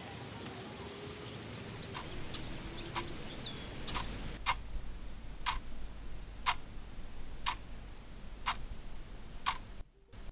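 Wall clock ticking about once a second, faint at first and more distinct from about four and a half seconds in.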